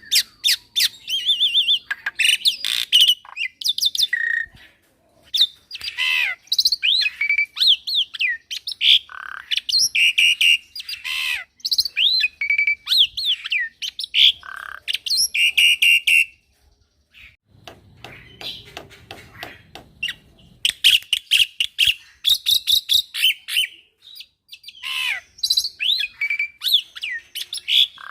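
Young black-winged starling (jalak putih) singing loudly and continuously: a varied run of whistled glides, rapid repeated notes and harsh squawky calls. The singing breaks off for a few seconds past the middle, then resumes.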